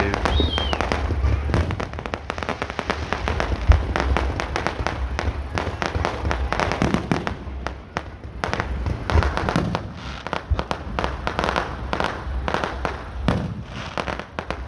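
Aerial fireworks going off in a rapid, dense stream of crackles and bangs over a low rumble, with one louder boom about four seconds in.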